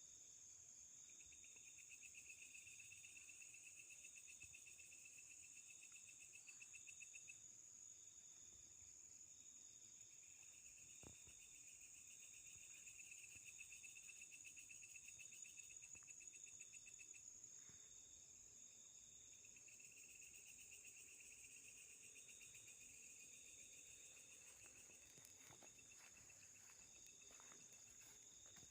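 A faint night chorus of crickets and other insects: a steady high-pitched shrill, a chirp that pulses a little over once a second, and a lower trill that comes and goes in spells of several seconds.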